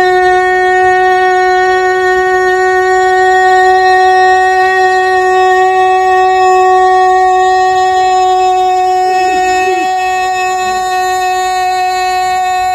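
A man's voice through a public-address system holding one long, loud shouted note at a steady pitch: the drawn-out call of a na'ra slogan for the crowd to answer. It breaks off at the very end.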